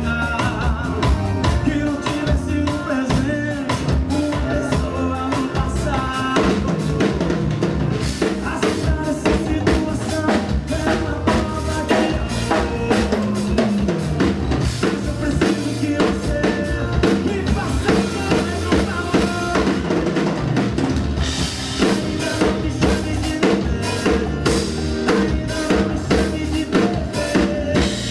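Drum kit played along to a sertanejo song's instrumental section: steady kick drum, snare and rimshot hits over the recorded band.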